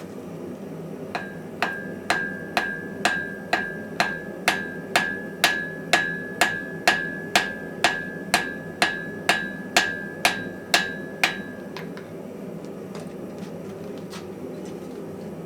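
A hammer striking the steel face of a small hand-forged wrought-iron anvil about twenty times, roughly two blows a second, stopping about 11 seconds in. A clear ring carries on between the blows, which is taken as a sign that the face is soundly forge-welded on.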